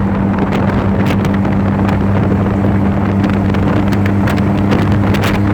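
Motor tricycle engine running at a steady pace under way, a steady low hum with a slightly higher tone joining about a second in, with wind buffeting the microphone.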